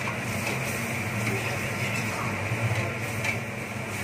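Steel ladle scraping and stirring thick, sizzling masala gravy with chicken in an iron kadai, with faint scrapes and clicks over an even frying hiss and a steady low hum.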